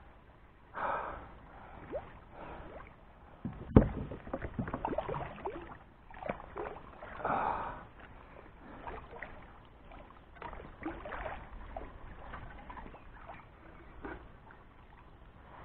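A hooked barbel (catfish) thrashing and splashing at the surface beside a plastic fishing kayak as it is brought in. A single sharp knock on the kayak, about four seconds in, is the loudest sound, followed by a rapid run of splashes and clatters and then scattered smaller splashes.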